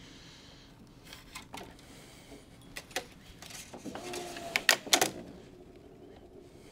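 Tennis string being pulled and tensioned on a racquet stringing machine: scattered clicks and snaps of string and machine parts. They are loudest in a quick cluster about four to five seconds in, with a short whine at the same moment.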